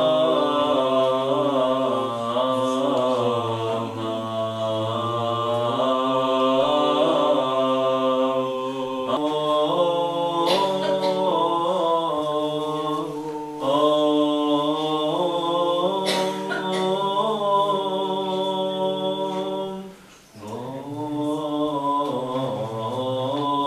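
Unaccompanied Orthodox liturgical chant: voices singing a slow melody over a low held note. It breaks off briefly near the end and resumes.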